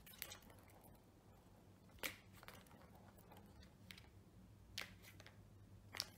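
Faint, scattered clicks and taps of a kitten's paw batting at a plastic ball-track toy, about six in all, the sharpest about two seconds in and at the end, over a low steady hum.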